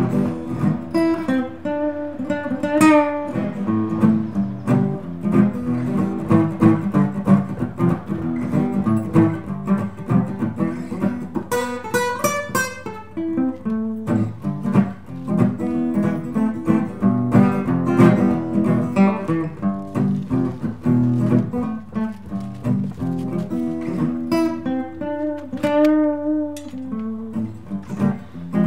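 Background music: plucked acoustic guitar picking a melody over steady low notes.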